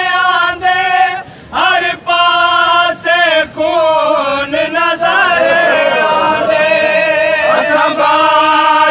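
Male voices chanting a Saraiki noha (mourning lament) in a slow melody, with a brief pause a little over a second in. From about five seconds in, a long note is held with several voices wavering together.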